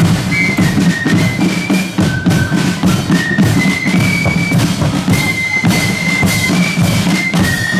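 Marching flute band playing a tune: high flutes carry a melody of held, stepping notes over steady snare-drum and bass-drum beats.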